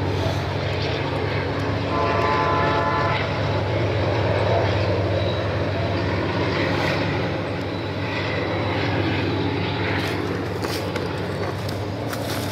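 Diesel-electric locomotives working at full power to haul an empty freight train up a steep grade: a steady, heavy low engine drone.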